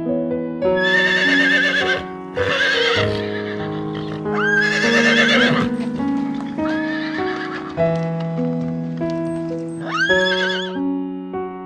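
A horse whinnying five times, each call high and wavering, over steady piano music.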